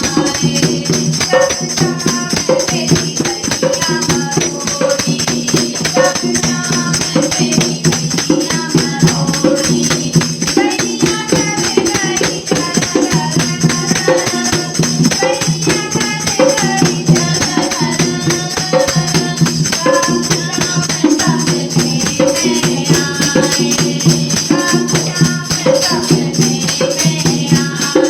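Women singing a devotional Krishna bhajan to a steady, rhythmic percussion beat.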